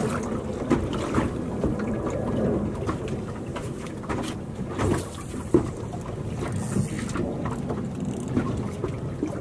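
Steady wind rumble on the microphone over choppy water around a small fishing boat, broken by a few short sharp knocks.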